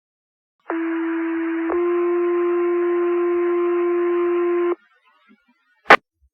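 Two-tone sequential fire pager alert sent over a dispatch radio channel: a low steady tone held about a second, then a slightly higher tone held about three seconds, with radio hiss behind them. A sharp radio click follows near the end.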